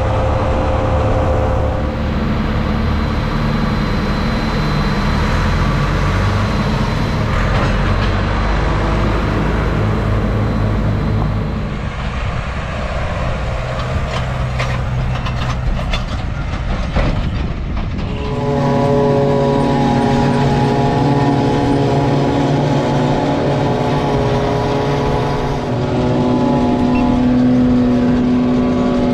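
Tractors and forage-harvesting machinery running steadily. From about two-thirds of the way in, a steady hum of several tones comes from a tractor-drawn Dion forage harvester chopping hay into a forage wagon.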